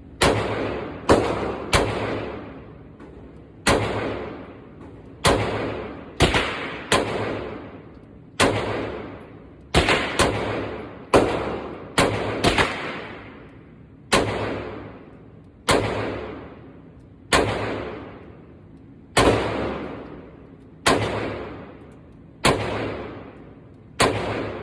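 Taurus G3C 9mm subcompact pistol being fired, about twenty shots at an uneven pace with some quick doubles. Each shot trails off in a long echo.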